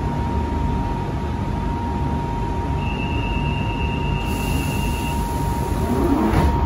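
Interior of a London Underground Central Line 1992-stock train standing at the platform. There is low rumbling noise with a steady electrical whine. A higher tone sounds for about two seconds partway through, and a hiss of air starts about four seconds in and ends with a thump near the end.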